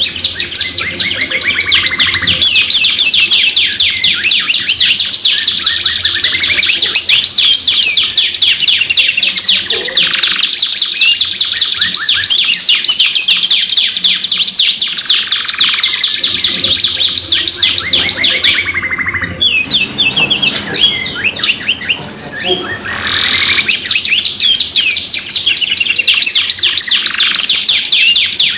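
Domestic canaries singing long, loud song made of fast rolling trills of rapidly repeated high notes, almost without a break. About two-thirds of the way through, the trills thin out into sparser, scattered notes for a few seconds before the full rolling song resumes.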